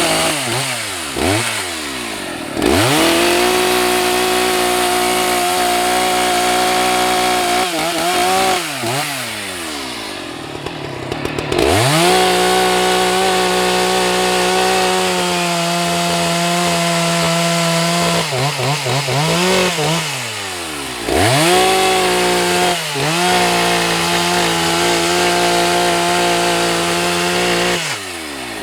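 Husqvarna 181 SE two-stroke chainsaw cutting firewood. It holds full throttle through three long cuts and drops back with quick blips of the throttle between them.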